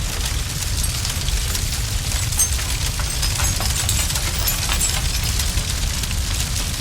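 Fire burning: a steady low rumble with frequent sharp crackles and pops scattered throughout.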